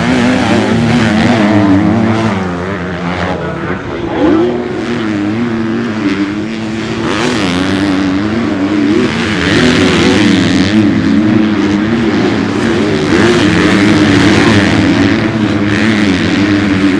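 Motocross bike engines revving, their pitch rising and falling repeatedly with the throttle.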